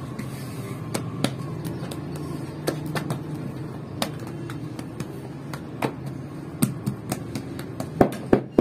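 Hands slapping and patting flatbread dough on a steel dome: scattered sharp slaps over a steady low hum, coming faster near the end.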